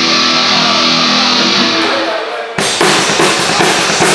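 Heavy metal band playing live on electric guitars, bass and drum kit: a held chord rings out, then about two and a half seconds in the full band crashes back in with drum and cymbal hits.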